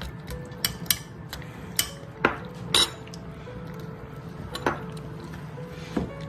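Cats eating from a stainless steel bowl: a run of sharp, irregular clinks as their mouths and the food knock against the metal.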